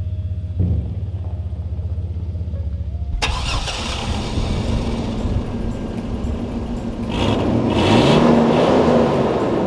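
Chevy Blazer SUV engine running with its stock exhaust still intact. A low steady rumble changes suddenly about three seconds in to a fuller engine sound, and the engine is revved once, its pitch rising and falling, in the last few seconds.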